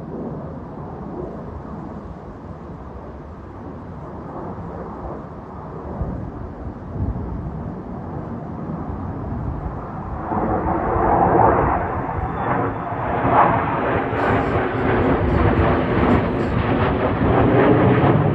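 Military fighter jet flying past: a rumbling jet roar that builds steadily and grows much louder and rougher about ten seconds in, with brief crackling near the end as it passes.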